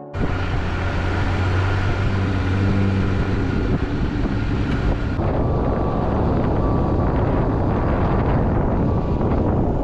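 A Jeep driving on snowy roads: steady engine and tyre noise with a low hum, the sound shifting about five seconds in.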